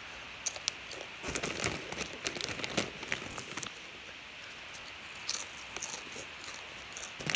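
Crunchy Flamin' Hot Cheetos being chewed: a run of crisp crunches for about three seconds, then a few more a couple of seconds later.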